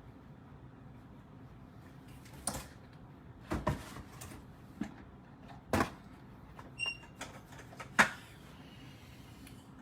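A handful of separate knocks and clatters, like objects being set down or handled, with a short high electronic beep about seven seconds in.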